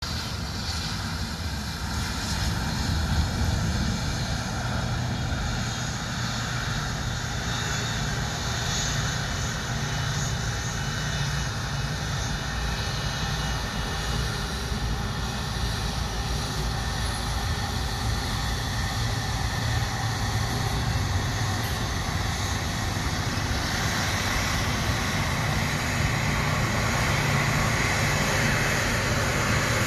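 Airbus A330-300's Rolls-Royce Trent 700 turbofans running at taxi power: steady jet engine noise with a low rumble, growing a little louder in the last few seconds as the aircraft taxis closer.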